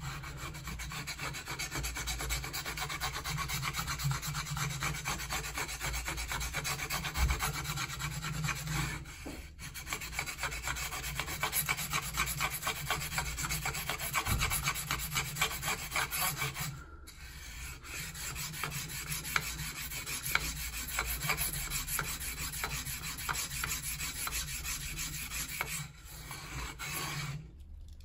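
Steel knife blade scraping back and forth on a diamond sharpening plate in rapid rasping strokes, grinding metal off to thin the bevel. The strokes stop briefly a few times.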